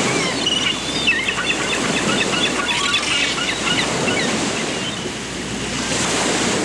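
Small birds chirping in quick, varied short notes, over a steady rushing background; the chirping fades out about two thirds of the way through.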